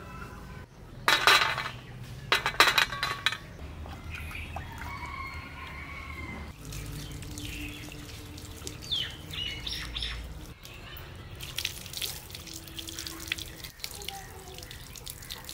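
Water poured from a mug splashing over a plucked chicken as it is rinsed by hand on a stone step, mostly in the second half. Near the start there are two loud, noisy bursts, and a bird calls a few seconds in.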